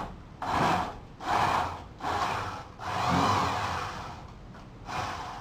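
A hand tool scraping away wood in repeated back-and-forth strokes, about one stroke a second with one longer stroke midway, enlarging the cylinder hole in a wooden door.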